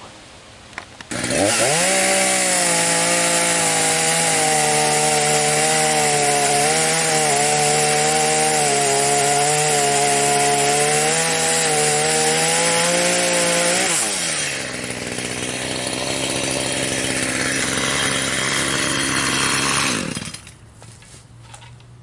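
Echo two-stroke chainsaw throttled up about a second in and held at high revs while cutting into the trunk of a standing dead ash tree. About two-thirds of the way through, the engine pitch drops and the sound turns rougher as the cut goes on. Near the end it falls back abruptly to a low idle.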